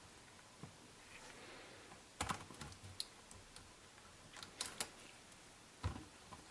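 Scattered light clicks and taps from a cologne box and its packaging being handled, coming in small clusters about two, four and a half, and six seconds in.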